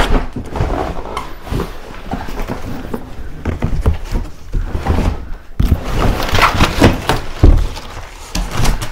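Cardboard box and cardboard packing inserts being lifted and pulled off a boxed wagon: scraping and rustling of cardboard with irregular knocks, and the heaviest thuds a little past the middle.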